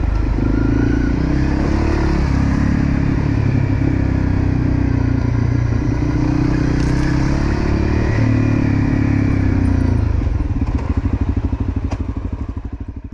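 Dirt bike's single-cylinder four-stroke engine running at low revs on a rough track, its note rising and falling with the throttle. Near the end it drops to a slow, pulsing idle and fades out.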